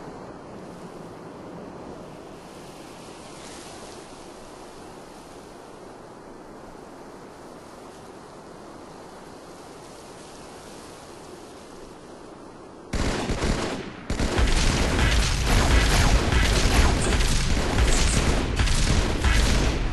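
Steady, even background noise, then about thirteen seconds in a sudden burst of dense, rapid gunfire that breaks off briefly after a second and then runs on loudly to the end.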